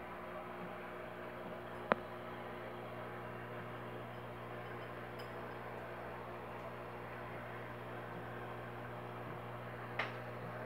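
Steady low hum of an aquarium's hang-on-back filter motor running, over a faint hiss. A sharp click sounds about two seconds in, and a softer one near the end.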